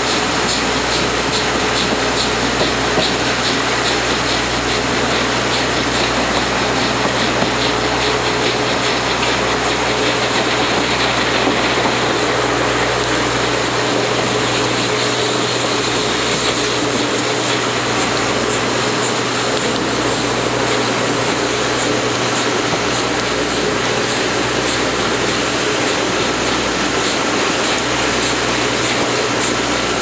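Steam locomotive C58 239 working hard up the grade, its exhaust beats faintly pulsing through the steady rumble and rail noise of the coach it hauls.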